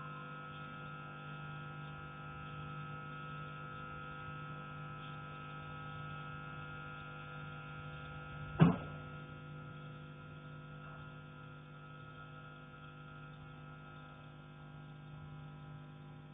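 A single loud knock on a metal heating pipe, struck from the attic, about halfway in, ringing briefly. A steady hum runs underneath.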